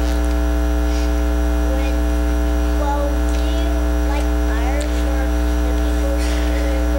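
Loud, steady electrical mains hum with many evenly spaced overtones on the recording, and a faint voice now and then underneath.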